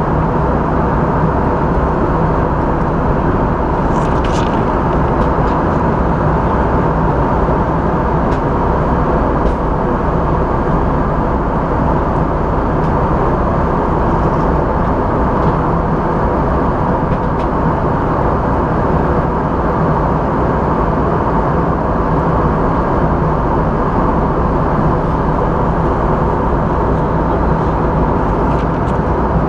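Steady cabin noise of an Airbus A320 in flight, heard inside the cabin at a window seat beside the wing: engine and airflow noise with a faint steady hum, and a few faint clicks.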